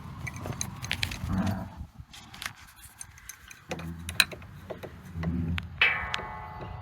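Hand work on an antique sawmill's metal parts: scattered knocks and clicks of tools and fittings, a couple of short scraping rumbles, and a ringing metallic clang about six seconds in.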